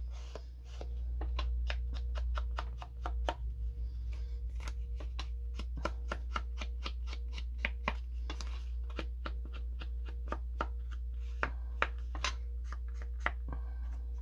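Ink being dabbed and scuffed onto the edges of cardstock to age it: a string of quick, irregular light taps, with a fast run of them about three seconds in.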